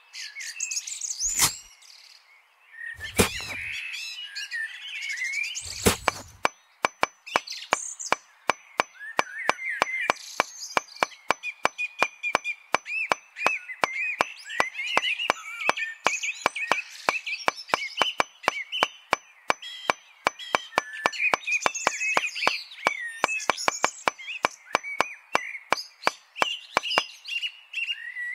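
Small birds chirping throughout over a series of sharp knocks: a few single knocks, then from about six seconds in a fast, irregular run of them, roughly three a second.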